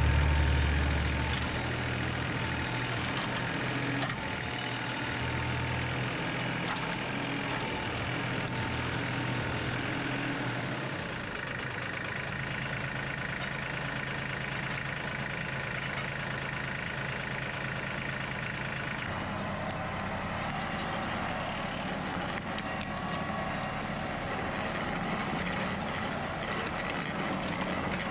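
Engine running steadily at a low, even speed, with a louder low rumble in the first second or so that then drops away.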